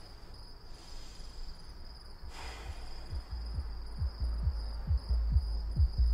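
Crickets trilling steadily while, from about three seconds in, the muffled thumping bass beat of the neighbours' party music comes through the wall, about two to three thumps a second and growing louder.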